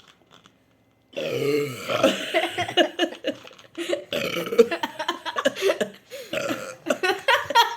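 A person burping loudly after holding the burps in, a long burp about a second in, then a run of further burps.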